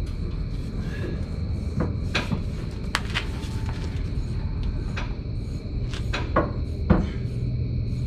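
Shop work on a truck's leaf-spring suspension: a string of sharp metal knocks and clanks from tools and parts being handled, spread irregularly over a steady background hum.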